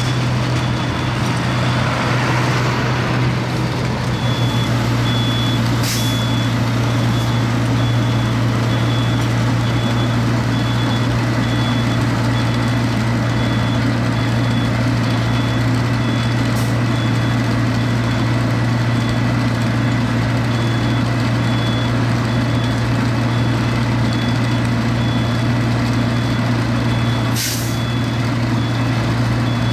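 A road milling machine and a Volvo FH dump truck running together in a steady, loud diesel drone as milled asphalt is conveyed into the truck. An evenly pulsing warning beeper repeats from about four seconds in, and short air-brake hisses come about six seconds in and near the end.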